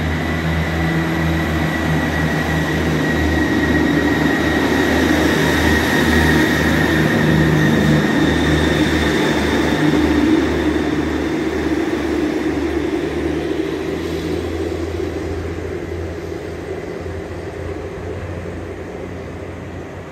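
ScotRail Class 158 diesel multiple unit pulling away from the platform, its underfloor diesel engines running with a steady high whine over them. It grows louder as the train passes, about halfway through, then fades as it draws away.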